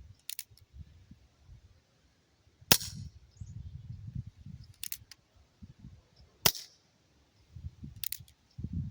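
Colt Peacemaker replica CO2 BB revolver being fired single action, a sharp pop about every one and a half seconds, five in all.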